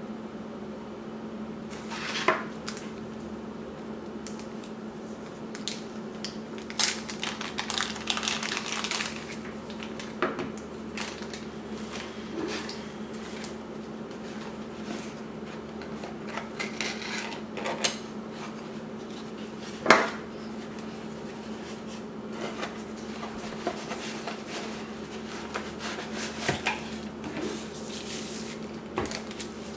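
Scattered clicks, taps and rustling as camera parts and packaging are handled on a wooden table: a camera battery, then a small cardboard box opened and a wrapped lens lifted out. A sharp knock stands out about two-thirds of the way in, and a steady low hum runs under it all.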